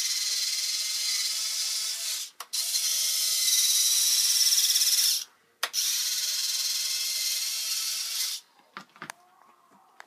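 Electric retract units on a homemade quadcopter landing gear whirring with a faint whine as they swing the legs up and down. There are three runs of two to three seconds each, with short clicks between them, then only faint ticks near the end.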